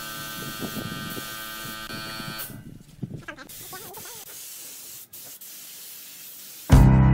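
Compressed-air spray gun hissing steadily, then shutting off about two and a half seconds in. A quieter stretch follows with a few light clicks, and loud music with a heavy drum beat starts near the end.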